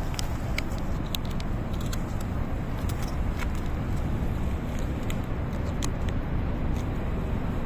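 Steady low rumble of outdoor background noise, with a few faint sharp clicks scattered through it.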